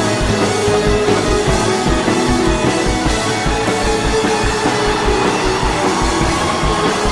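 Background music with a steady, fast beat.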